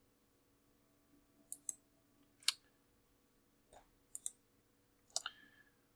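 Computer mouse clicking about eight times, several as quick pairs, against quiet room tone.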